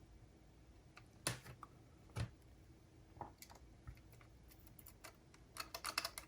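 Small sharp clicks and taps of tools on the tiny parts of a MiniDisc transport as its laser sled is being worked loose: a few single clicks spaced about a second apart, then a quick run of clicks near the end.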